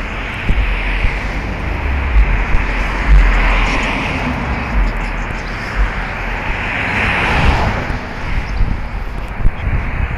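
Street traffic passing: cars go by one after another, each swelling and fading, over a constant low rumble. The loudest pass comes a little past the middle.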